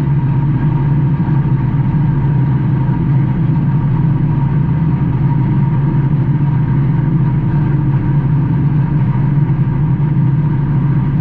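Stock race car engine running at a steady, unchanging pitch, heard from inside the car's cockpit.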